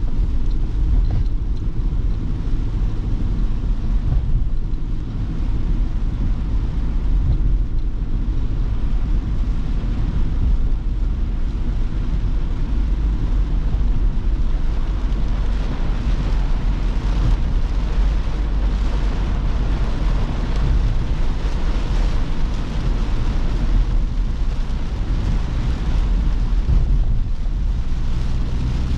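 Ford Transit Custom diesel van driving in heavy rain: a steady low engine and road rumble under an even hiss of rain and wet tyres.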